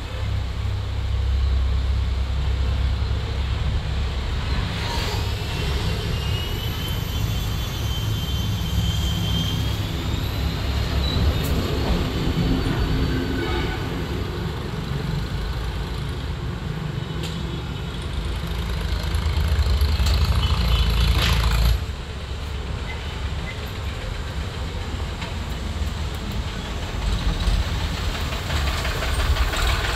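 Steady low mechanical rumble, with a thin whine gliding up in pitch from about six to eleven seconds in and a few light clicks. The rumble drops off sharply about two-thirds of the way through.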